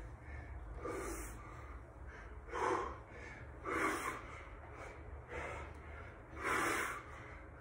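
A man's heavy breathing from exertion: short, forceful exhales about once a second, a few of them louder and harsher.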